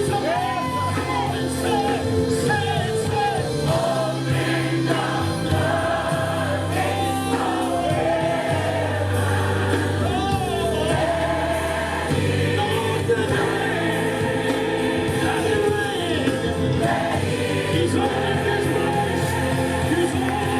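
Gospel choir singing over a band playing sustained chords: music, with no other sound.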